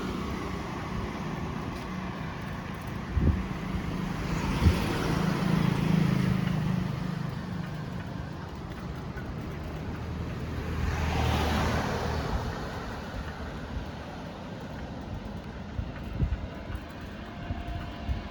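Road traffic going by on an open road, with two vehicles passing close, one about a quarter of the way in and one past the middle, each rising and falling in level over a steady low rumble. There are two sharp knocks in the first few seconds.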